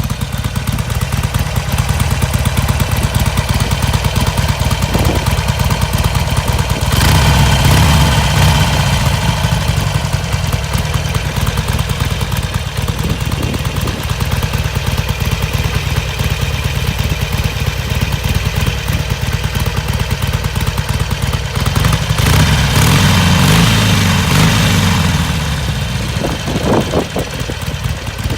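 Harley-Davidson Sportster Iron 883's air-cooled V-twin running through its stock exhaust, mostly a steady idle rumble. Twice it swells louder for a few seconds before settling back.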